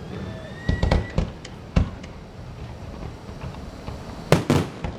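Fireworks going off: a faint rising whistle, then sharp bangs in bursts, a cluster about a second in, a single bang near two seconds and another cluster just after four seconds.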